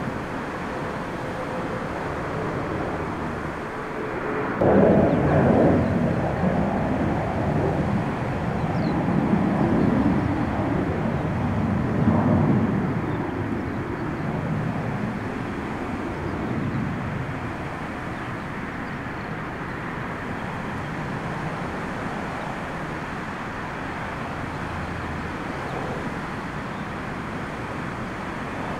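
Jet airliner engine noise, a low rumble that jumps suddenly louder about five seconds in and wavers until about halfway through, then settles to a steadier, quieter rumble.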